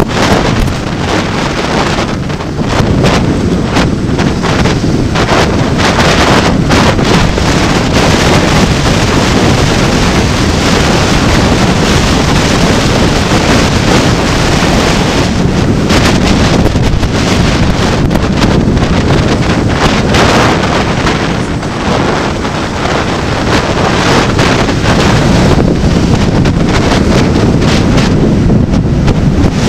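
Heavy wind buffeting the microphone of a camera riding along a road on a two-wheeler, a steady rushing noise that flutters and dips briefly now and then.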